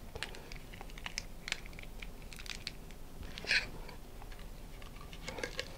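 Mylar streamer crinkling and rustling in the hands as it is rolled up and pushed into a model rocket's body tube, with many light ticks and a louder crinkle about three and a half seconds in.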